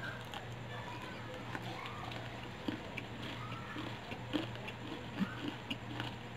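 A person chewing a mouthful of fried chicken close to the microphone: soft wet mouth clicks and crunches, with a few sharper bites over a steady low hum.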